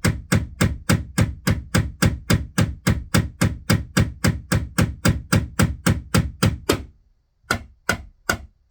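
Hammer striking a nail into a wall, rapid even blows at about four a second with a brief pause near the end before the blows resume, as the nail is driven home.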